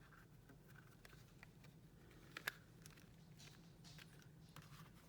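Near silence with faint handling noises: scattered soft clicks and rustles of items and packaging being handled, with one sharper click about two and a half seconds in.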